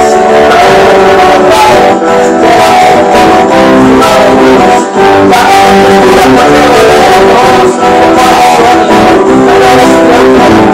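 Acoustic guitar and electric guitar played together live, a continuous loud stretch of music.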